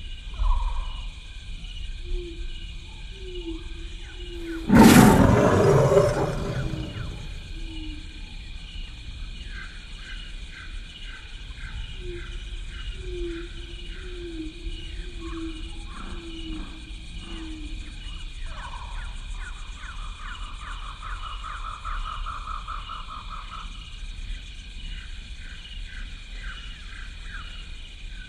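Westie terrier growling in play, in short rough bursts, with one loud bump about five seconds in.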